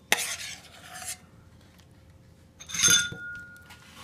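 A utensil scraping the tuna mixture out of a bowl, twice, with a clink of metal on the dish and a short ring about three seconds in.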